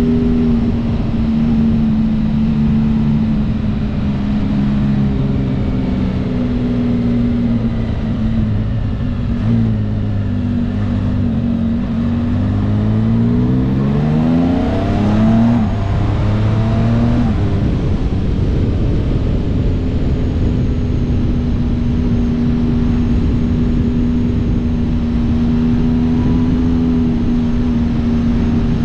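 Can-Am Spyder F3's Rotax three-cylinder engine running at a steady cruise under wind noise, revving up through a rising pitch about halfway through before settling back to a steady note.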